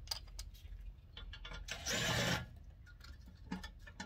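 Cordless impact wrench running briefly, about two seconds in, as it spins out a rear differential cover bolt. Small clicks of the socket and bolts come before and after.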